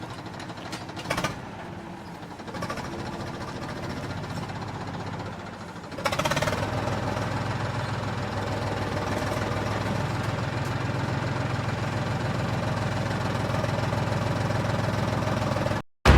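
A motor running steadily. It is quieter at first, then louder from about six seconds in with a steady droning hum, and it cuts off abruptly just before the end.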